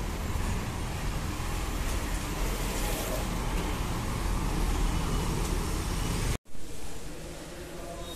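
Street traffic noise with a steady low rumble, as a motor scooter and other vehicles pass. It cuts off suddenly about six seconds in, giving way to a much quieter indoor room tone.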